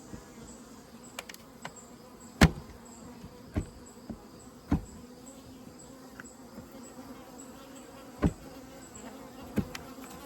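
Honeybees buzzing steadily as a low hum over an open hive, with about five sharp knocks, the loudest about two and a half seconds in.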